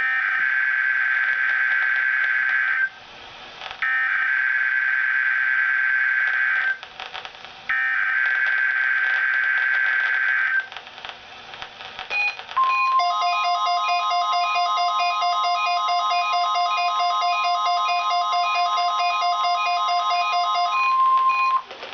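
NOAA Weather Radio Required Weekly Test signal: three warbling digital SAME header bursts of about three seconds each with short gaps, then a steady alert tone near 1 kHz, the 1050 Hz weather radio tone. It lasts about nine seconds with faster pulsing tones layered over it and cuts off just before the announcement.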